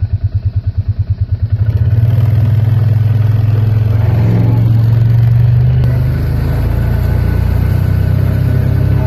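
A motor vehicle's engine runs with an even, fast pulse. About two seconds in it changes to a steadier, louder run, as if pulling away.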